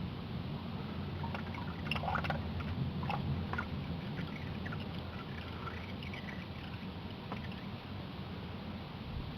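Old engine oil running and dripping from a loosened oil filter into a drain bucket, with scattered small clicks and taps of handling, over a steady low hum.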